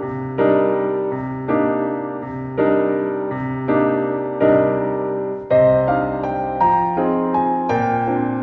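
Background music: a piano or electric piano playing gentle sustained chords, a new chord struck about once a second, coming faster in the second half.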